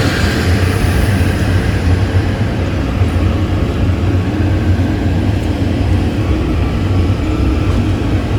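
Passenger sleeper train in motion: a steady low rumble of the carriage running on the rails.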